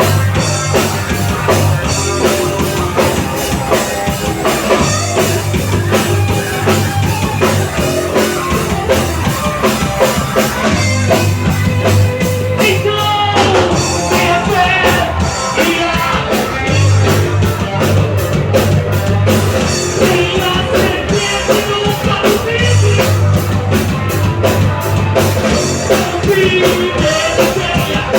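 Rock band playing live: a drum kit keeping a steady beat under electric guitars and bass guitar, with a singing voice at times.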